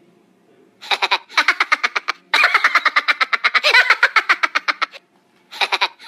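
High-pitched laughter: a fast run of 'ha-ha' pulses starting about a second in, in several bursts with short breaks between them.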